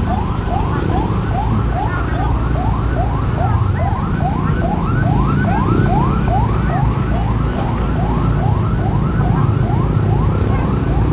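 A vehicle siren wailing in quick repeated rising sweeps, about three a second, over the steady rumble of a moving motorcycle and wind.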